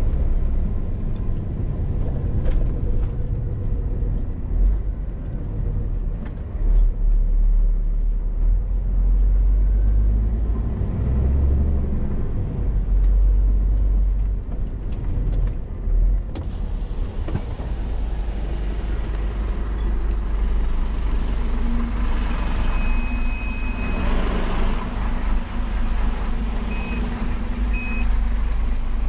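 Scania R450 lorry on the move: a steady low rumble of its six-cylinder diesel engine and road noise. A little over two-thirds of the way in a high beep sounds for about a second and a half, followed by two short beeps near the end.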